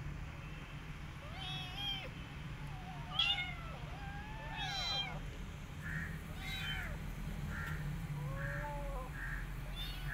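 Nursing kittens mewing: about six short, high-pitched mews, each rising and falling, spread through the first nine seconds.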